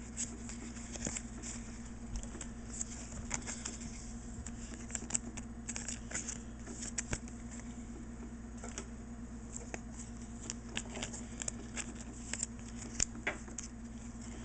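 Foil booster pack wrapper of Pokémon trading cards crinkling and tearing as it is opened, and the cards inside being handled: light, irregular crackles and rustles over a steady low hum.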